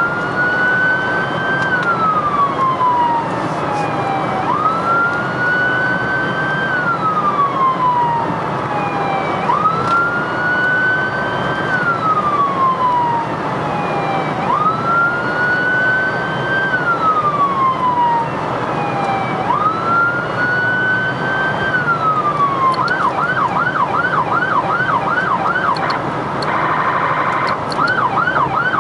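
Emergency vehicle siren heard from inside the responding vehicle's cab over road noise: a slow wail rising and falling about every five seconds, switching about three-quarters of the way through to a fast yelp, with a short blast of a different tone near the end.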